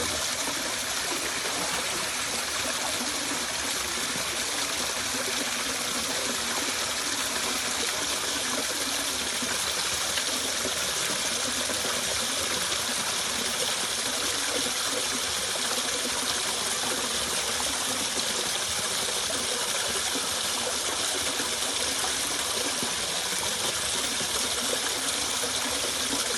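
Jungle river flowing, a steady rush of running water with no break or change.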